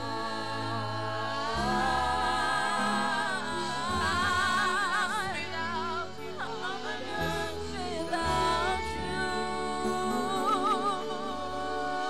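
Gospel worship music: a woman's voice singing long held notes with vibrato over sustained keyboard and bass chords.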